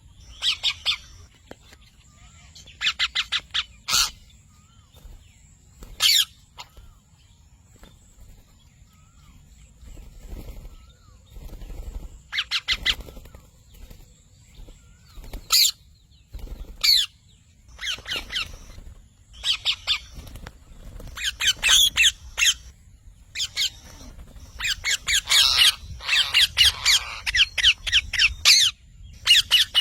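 Parrot squawking in runs of short, quick calls, scattered at first and coming thicker and longer in the last several seconds.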